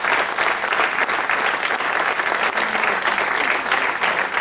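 Audience applauding, a dense, steady clapping that fills the pause in the presenter's words.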